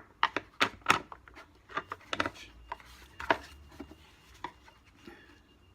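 Sharp clicks and knocks of Henry vacuum cleaner parts being handled and pushed together while a part is fitted. About a dozen taps come in the first three and a half seconds, then a few fainter ones.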